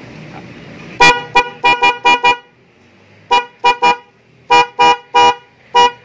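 A pair of Denso snail-type electric horns, wired through a relay, sounded in a string of short toots: about six quick ones, then two groups of three, then one more. They sound clear and full now that the wiring is correct and they no longer rub against the body.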